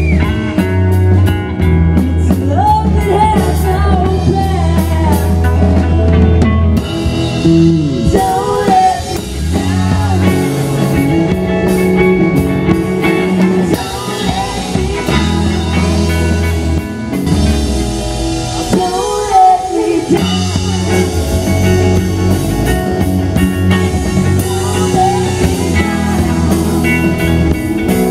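Live rock band playing: electric guitars, bass and drum kit, with sung vocals over them at times.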